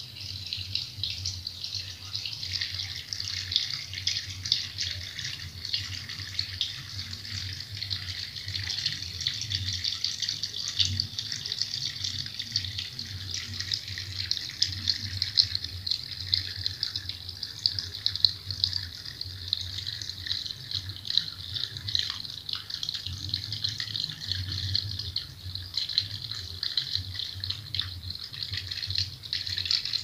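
Water from a floating-tap fountain pouring in a steady stream and splashing onto wet pebbles in a basin, with a low steady hum underneath.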